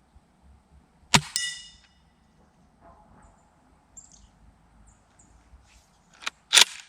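Double Bell Kar98K gas-powered bolt-action airsoft rifle firing once about a second in: a sharp crack with a metallic ring. Several more sharp clacks come in quick succession near the end.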